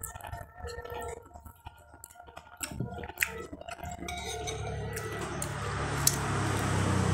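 A few sharp clinks of a plate and utensils while a meal is eaten. From about four seconds in, a steady hiss with a low hum comes up and grows louder.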